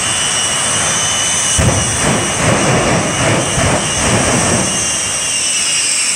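Shockwave jet truck's three Westinghouse J34 turbojet engines running with a steady high whine and rushing roar. From about a second and a half in, a few seconds of choppy low rumbling join the whine.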